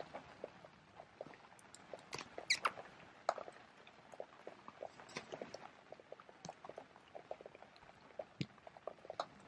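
Faint scattered rustles and light taps of feet and small paws moving over dry, shaving-strewn ground, with a couple of brief high squeaks about two and a half seconds in.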